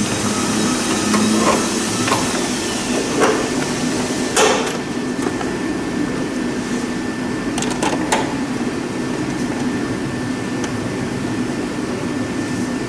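Hollow knocks and clatter as the lower half of a plastic air filter housing is set into place in the engine bay, the loudest knock about four seconds in. A quick cluster of sharp clicks follows around eight seconds in, over a steady background hum.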